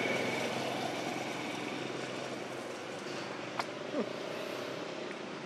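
Steady hum of distant motor traffic, slowly fading, with one sharp click about three and a half seconds in and a brief falling squeak just after.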